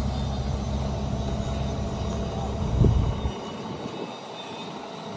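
Diesel engine of a Caterpillar 303.5C mini excavator idling with a steady low rumble. A loud thump comes a little under three seconds in, and just after it the low rumble stops, leaving a fainter even background.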